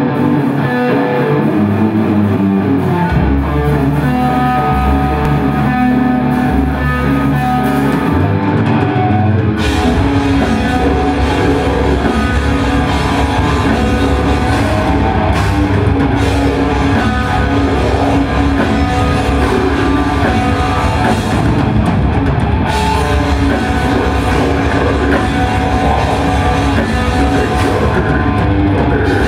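Heavy metal band playing live with electric guitars, bass and drum kit. It opens with slow, sustained notes and low bass tones, and the full band with drums comes in about ten seconds in.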